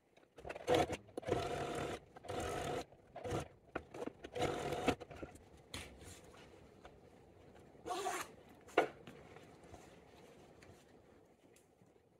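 Domestic sewing machine stitching a zipper seam in several short runs with pauses between, mostly in the first half, then two brief sounds.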